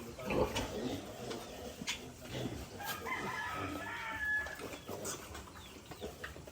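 Farm animal calls, with a few short high cries about three to four seconds in.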